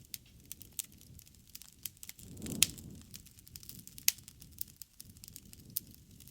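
Wood campfire crackling, with irregular sharp pops and snaps over a low rumble of flame. The two loudest pops come about two and a half and four seconds in, the first on a brief low swell of the flames.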